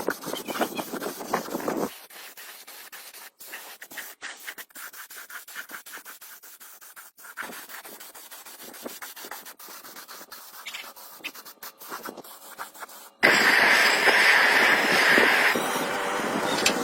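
Sanding on a vehicle's bodywork: quick repeated rasping strokes, louder for the first two seconds and fainter after, then a much louder steady rasping that starts suddenly near the end.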